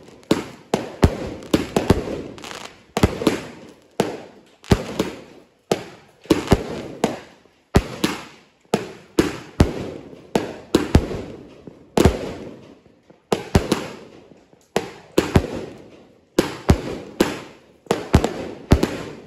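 Aerial firework shells bursting overhead: a steady run of sharp bangs, one or two a second, each trailing off in a short echo.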